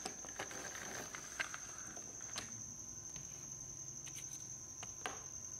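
Faint, scattered clicks and taps of plastic toy vehicles being handled and picked up, over a steady high-pitched whine.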